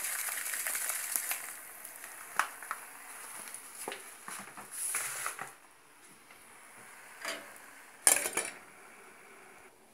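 Coarse sea bath salt poured from a plastic bag into a steel pot of heating water, with scattered clicks and knocks, then a metal pot lid clattering as it is set on the pot near the end.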